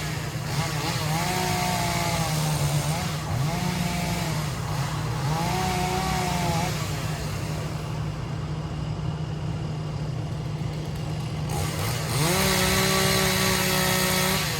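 Gas chainsaw running and being revved repeatedly. Its pitch climbs and drops several times, then it is held at high revs near the end.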